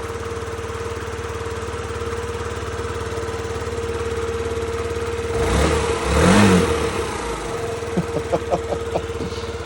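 Yamaha Vino 50cc fuel-injected scooter engine idling steadily, running again after its fuel pump was replaced. About five and a half seconds in it is briefly revved, rising and falling in pitch, then settles back to idle.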